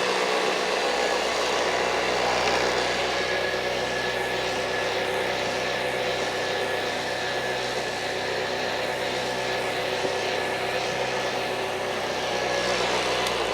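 Vintage Hoover Junior dirty-fan upright vacuum cleaner running steadily with a cleaning tool attached, its motor hum carrying a steady high whine.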